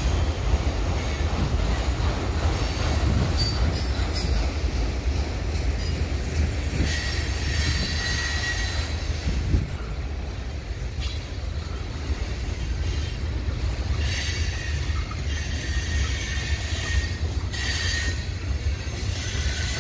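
Freight cars rolling through a sharp curve with a steady low rumble. The steel wheels squeal against the rail in several spells of a second or two each, the flange squeal typical of a tight curve.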